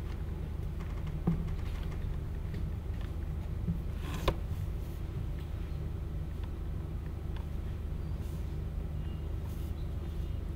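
A steady low hum of background noise, with a few small knocks and one sharp click a little over four seconds in.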